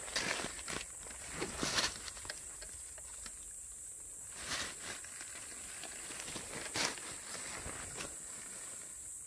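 Dry fallen leaves rustling and crunching in a few short, irregular bursts, as someone shifts about on the leaf litter, over a steady high hiss.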